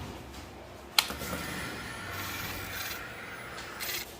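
A sharp click as the motorcycle's ignition is switched on, then about three seconds of a faint, steady whirring hum that stops: the fuel pump priming.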